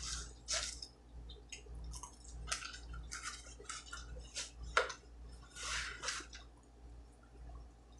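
Close-up chewing and mouth sounds of eating pizza: irregular soft smacks and crunches, with a faint steady low hum underneath.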